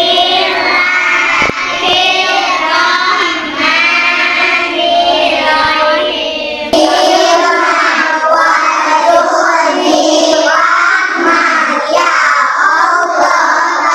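Schoolchildren's voices singing together in unison, a class chanting as a group. About seven seconds in the sound jumps abruptly to another group of children reciting a prayer together.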